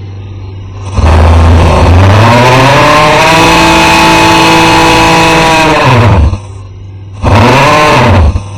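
A person making loud, exaggerated snoring noises: one long drawn-out snore whose pitch rises and then falls, then a shorter snore near the end. A steady low hum fills the gap between the two snores.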